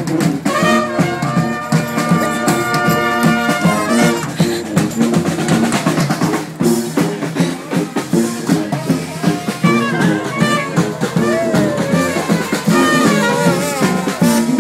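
Brass band with sousaphones playing a jazzy tune live. A held brass chord sounds from about half a second in to about four seconds, then the band plays melodic lines over a steady beat.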